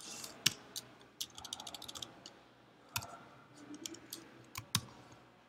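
Computer keyboard typing and clicking: scattered sharp clicks, with a quick run of keystrokes about a second and a half in.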